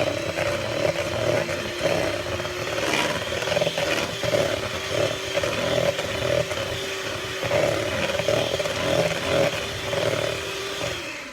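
Electric kitchen mixer running steadily, beating crushed Oreos into cake batter, then winding down near the end.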